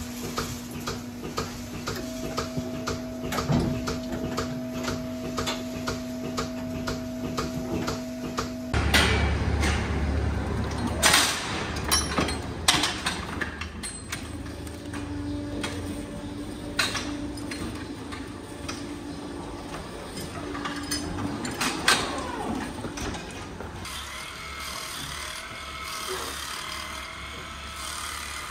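Robotic milking unit running: a steady hum with the milking pulsator clicking a few times a second. About nine seconds in it gives way to a low machine hum and loud metal clanks from a cattle hoof-trimming chute. Near the end there is the soft repeating sound of a small corded electric clipper on a cow's leg.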